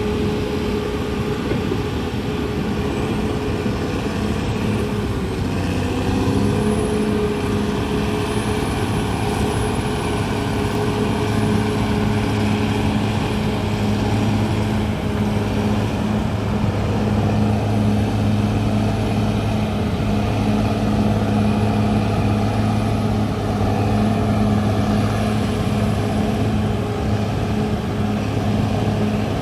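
Caterpillar D6R XL bulldozer's diesel engine running steadily; its note dips briefly about five seconds in, then holds steady.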